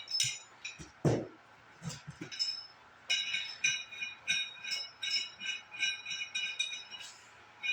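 Small metal parts of a wheel hub and bearing kit clinking together with a light ringing, in a quick run of clinks from about three seconds in. A dull knock comes about a second in.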